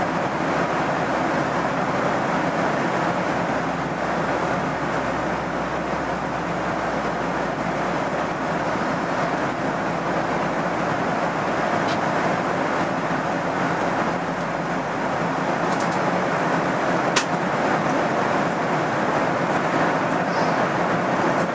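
Steady rush and hum of an airliner cabin in flight, with jet engine and airflow noise heard from inside, and one short click about three quarters of the way through.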